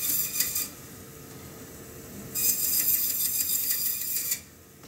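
Meat band saw cutting across a bone-in beef short loin into porterhouse and T-bone steaks: a loud high rasping as the blade goes through bone, ending about half a second in, then a second cut from about two seconds in to just past four. Between the cuts the saw runs with a quieter steady hum.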